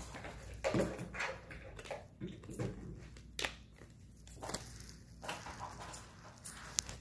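Plastic CD jewel case being handled and opened, with a disc pried off its centre hub: scattered sharp plastic clicks and snaps, with rustling between them.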